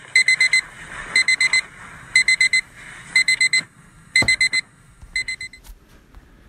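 Alarm clock beeping in quick bursts of four, about one burst a second, cutting off after about five and a half seconds. There is a single thump about four seconds in.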